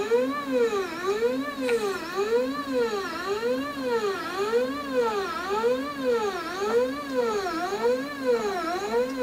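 The stepper motor driving the Y axis of a 3018 Pro desktop CNC router whines as it moves the bed toward the front, its pitch rising and falling evenly about once a second.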